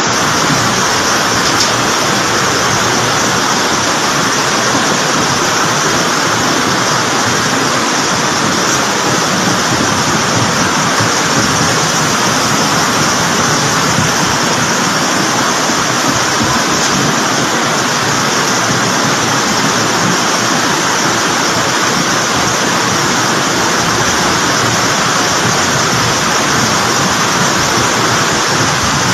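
Flash-flood water rushing down a channel: a loud, steady rush of churning water that does not let up.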